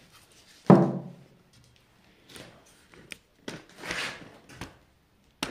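A loud thunk about a second in, then soft, intermittent rubbing and rustling of a cloth wiping the feed rollers inside a thickness planer, with a sharp click near the end.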